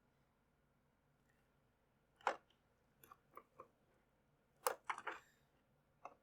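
Faint clicks and taps from handling the opened Xbox 360 controller's plastic parts and circuit board: one about two seconds in, a few small ones a second later, and a louder cluster near the end.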